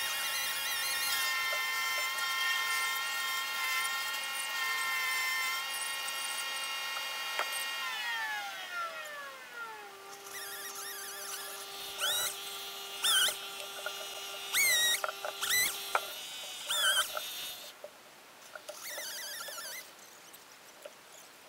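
A machine's motor runs with a steady high whine, then about eight seconds in slows, its pitch gliding down over a couple of seconds to a lower steady tone that cuts off near sixteen seconds. Short high chirping squeaks sound over it in the second half.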